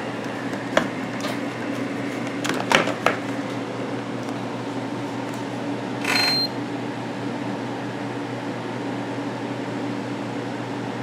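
Steady hum of the running radio equipment and its cooling fan, with a few light handling clicks in the first few seconds. About six seconds in comes a short high beep from the infrared thermometer as it takes a reading.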